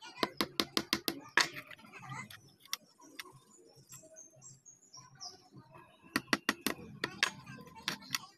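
A block of wood tapping a pushpin through the aluminium top of a soda can to punch holes in it. A quick run of about six sharp taps comes at the start, and another run comes about six seconds in.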